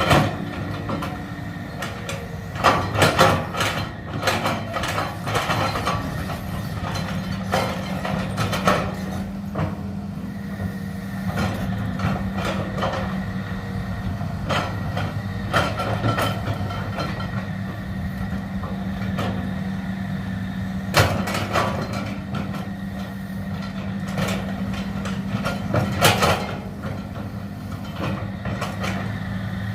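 Excavator engine running at a steady hum, with loud knocks and clanks coming every few seconds, loudest near 3, 21 and 26 seconds in.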